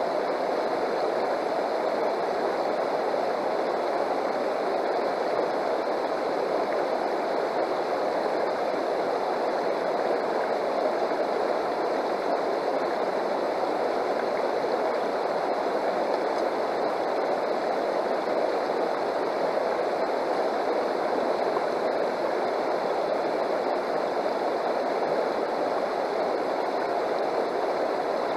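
Shallow river water rushing steadily over rocks and through a Keene sluice box set in the current.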